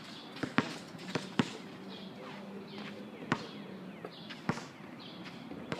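Basketball bouncing on a court: about six sharp, irregularly spaced bounces.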